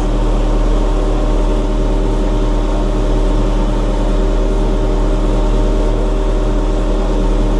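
Backhoe loader's diesel engine running at a steady speed, an unchanging hum with a strong low drone.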